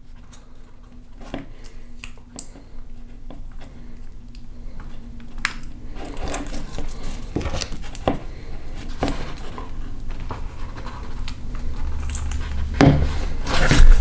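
Scattered small clicks, taps and rustles of hands working a VW/Audi shift knob and blue painter's tape: tape pressed onto the plastic button, then the button gripped and pulled back. The handling grows louder toward the end, with a couple of sharper knocks near the end.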